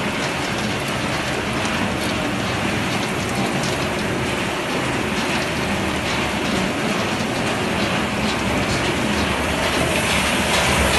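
Puffed-snack production line machinery running steadily, with a dense rattle of fine clicks over a constant machine noise, getting a little louder near the end.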